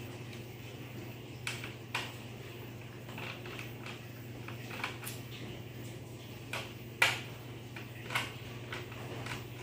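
Scattered light clicks and taps of a screwdriver and plastic laptop parts being handled while a laptop is taken apart, over a low steady hum.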